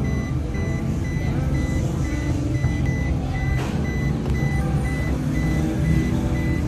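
A high electronic beep repeating about twice a second, steady and unchanging, over a continuous low rumble.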